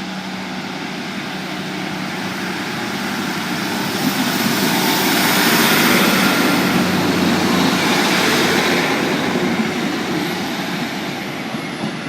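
Class 150 Sprinter diesel multiple unit running past close by: engine and wheel noise swell to a peak about halfway, then fade away.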